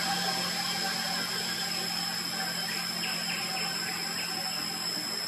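Steady outdoor background noise: a continuous hiss with a constant high-pitched whine and fainter steady low hums, with no distinct calls.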